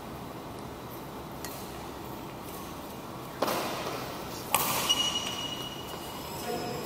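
Badminton rackets striking a shuttlecock during a rally: two sharp hits about a second apart in the second half, each ringing on in a large hall, with a faint tap earlier. A brief high squeak follows the second hit.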